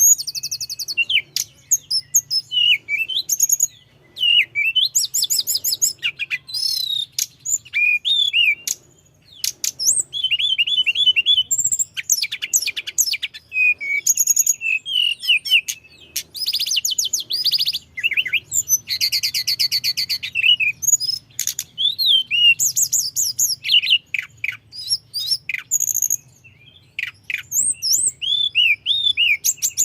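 Tledekan gunung singing in long, rapid runs of high chirps, trills and whistled notes, broken by brief pauses, over a faint low hum.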